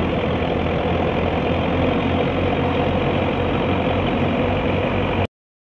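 Belarus 510 tractor engine running steadily, driving a wheat thresher as wheat is fed in; the sound cuts off suddenly near the end.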